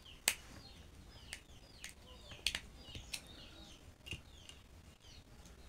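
Small birds chirping in the background, with a scattering of sharp clicks and taps from handling a screwdriver, wires and a contactor. The loudest click comes just after the start.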